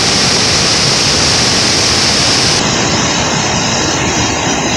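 Waterfall on a river in spate after rain: a loud, steady roar of whitewater pouring through a rocky gorge, turning slightly duller about halfway through.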